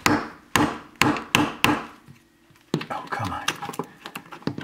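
A hammer knocking five times in quick succession, tapping a peel-and-stick metal backsplash tile into a tight gap. About two and a half seconds in, a flat metal tool pressed against the tile edge makes a quicker run of lighter clicks and scrapes.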